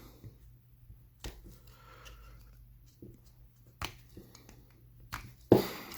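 Sparse clicks and rustles of a soft plastic funnel being handled and trimmed by hand, with a louder rustle near the end. A faint steady low hum sits underneath.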